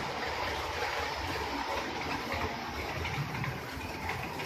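HO scale model trains running on the layout's track: a steady rolling noise of wheels on the rails.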